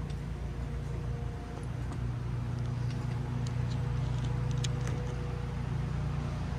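A small engine running steadily with a low, even hum, a little stronger from about two seconds in, with a few light clicks over it.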